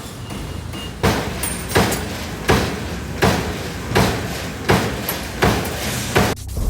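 Metal-working shop: repeated sharp strikes on steel, about eight evenly spaced blows a little under a second apart, over a steady machine hum.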